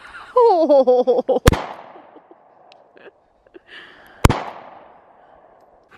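Two shots from a compact semi-automatic pistol, about three seconds apart, each followed by a fading echo.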